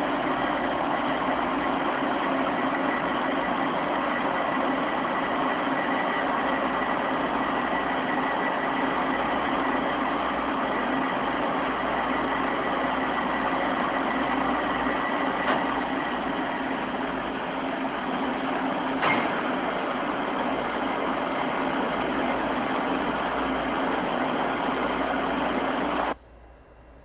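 Steady mechanical hum and hiss with a faint whine in it, unchanging for over twenty seconds, then cutting off suddenly near the end.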